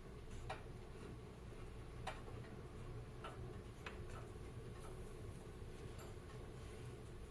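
Wood fire burning in a fireplace, with sharp crackles and pops at irregular intervals over a low steady hiss.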